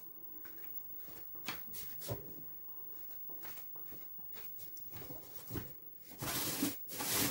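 Quiet room tone with a few faint knocks, then a louder stretch of noise lasting about a second near the end.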